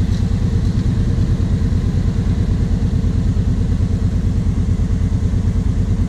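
A quad (ATV) engine idling steadily, a low, even running note with a regular pulse and no revving.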